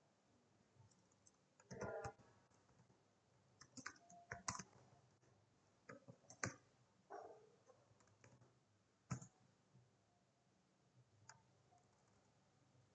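Faint, scattered computer keyboard keystrokes: irregular clicks in small clusters with quiet gaps between them.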